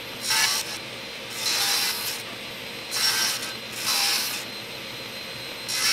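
Table saw running steadily while its blade cuts angled segments off a walnut strip on a crosscut sled. There are about five cuts, roughly a second apart, each a louder burst of sawing over the motor's hum.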